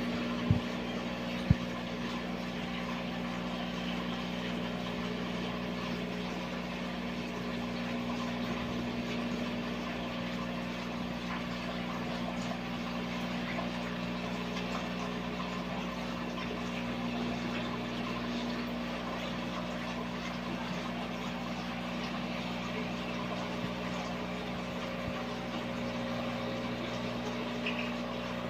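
Aquarium pump or filter motor humming steadily, with water moving. A couple of sharp clicks come in the first two seconds.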